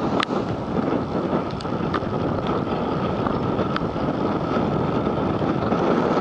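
Storm wind buffeting the microphone: a steady rushing noise with a few faint ticks.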